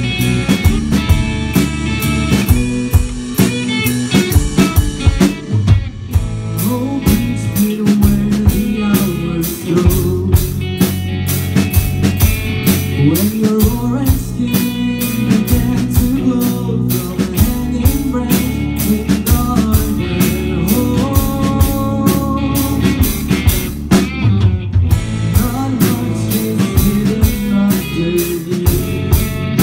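Rock band playing live: electric guitar and drum kit with a steady beat, and a singer's vocals over them.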